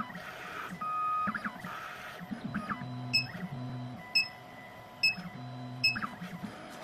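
2M2 Tank CNC key cutting machine starting its cut: its motors move in short humming runs, with sharp ticks about once a second.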